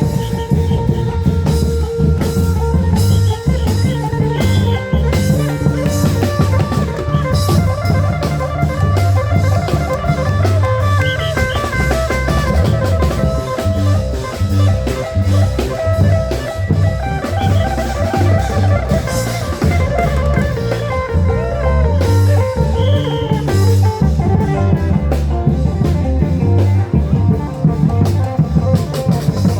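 Isan klong yao band music: drums keep a steady driving beat under a plucked guitar melody.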